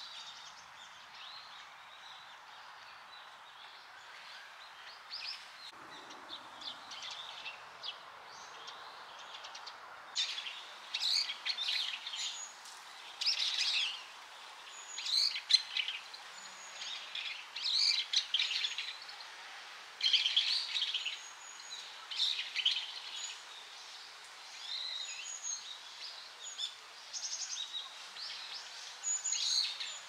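A stream's water running steadily, with a bird calling over it in many short, repeated calls that start to come thick and loud about ten seconds in.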